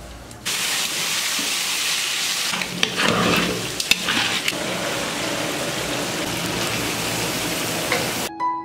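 Food sizzling as it fries in a pan of hot oil, with a few clicks and scrapes of a utensil stirring it around the middle. The sizzle starts suddenly about half a second in and cuts off just before the end.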